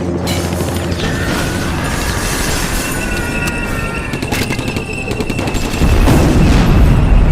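Action movie soundtrack with music under gunfire and booms, and a deep rumble that swells loud about six seconds in.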